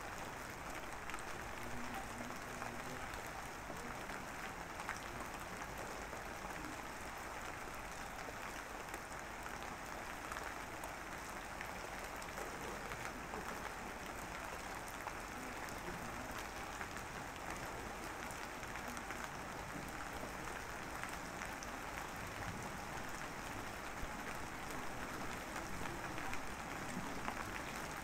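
A steady hiss with a faint crackle.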